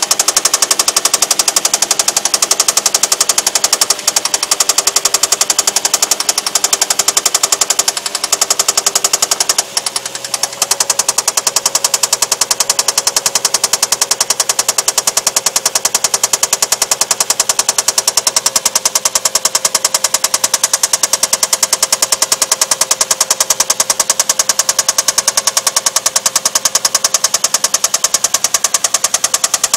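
Infiniti's VQ35DE 3.5-litre V6 running with a loud, rapid, evenly repeating metallic knock. The uploader takes it for a spun bearing shell (bearing knock).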